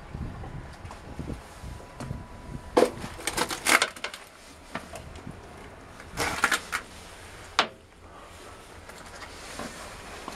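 Scattered light metallic clinks and knocks from handling at the engine-room door, a cluster about three seconds in, another about six seconds in and a single knock shortly after, with the engine not running.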